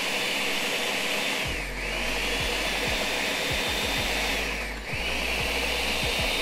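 Countertop blender whipping feta and olive oil into a smooth whipped feta, run in long pulses: the motor runs at full speed, dips briefly twice and picks straight back up.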